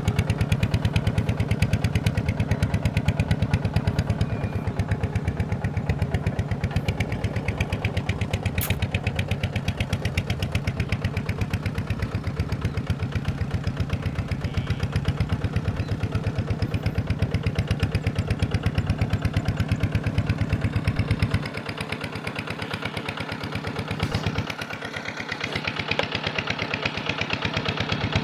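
Farm machine's engine running with a steady, rapid pulse. About twenty-one seconds in its low rumble drops away and the sound gets quieter for a few seconds, then it picks up again near the end.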